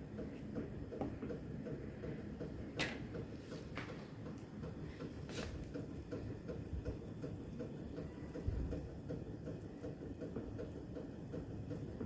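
A pot of chicken feet in water at a rolling boil, bubbling steadily, with a few light clicks in the first half.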